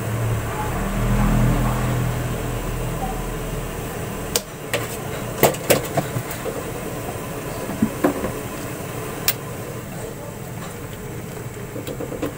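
Sharp clicks and taps from a plastic storage container and a metal ladle being handled at a pot of vegetable soup, a quick cluster about four seconds in and a few more later. A low steady hum comes before them.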